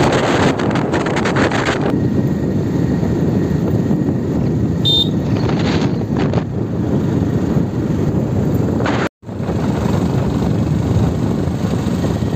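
Motorcycle on the move: engine running under a steady rush of wind on the microphone. The sound cuts out for a moment about nine seconds in, then carries on.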